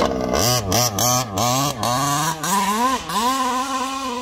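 Two-stroke petrol engine of a 1/5-scale HPI Baja 5T RC truck revving up and down in quick throttle blips as it pulls away. About three seconds in it settles into a steadier, higher-pitched run as the truck drives off.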